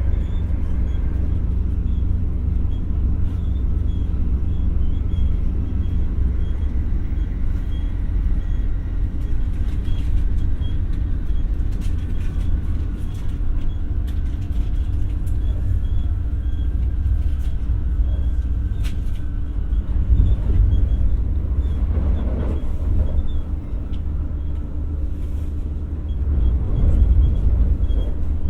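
Cabin running sound of an X60 (Alstom Coradia Nordic) electric multiple unit under way: a steady rumble of wheels on rails with a constant motor hum and a faint whine, plus scattered light clicks and rattles.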